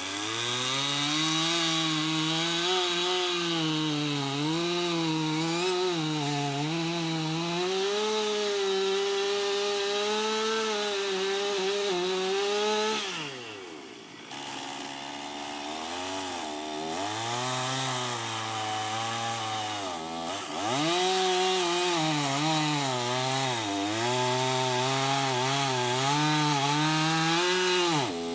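Two-stroke chainsaw running at high throttle as it cuts into a tree trunk, its pitch wavering as the chain bites into the wood. About 13 seconds in the throttle drops off and the engine falls away, then revs back up, with a second brief dip around 20 seconds.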